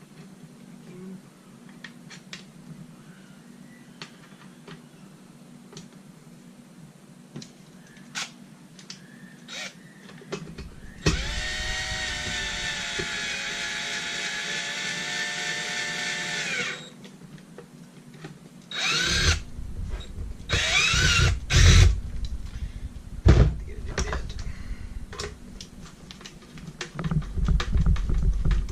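Power drill driving screws into a vacuum motor assembly. There is one steady whine lasting about six seconds, then a few short runs that rise in pitch. Light clicks of parts being handled come before.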